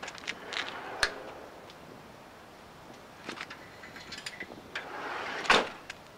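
A van's sliding side door unlatched and run open with a rush and a sharp click, then an aluminium stepladder rattling and clanking against the door frame as it is pulled out, with the loudest clank near the end.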